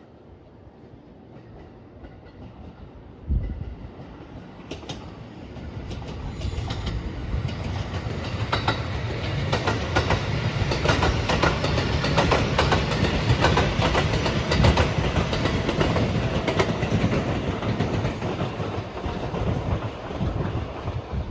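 Electric train approaching and passing at speed. The rumble builds over several seconds to a loud, steady run of wheel clacks over the rail joints, then eases slightly near the end.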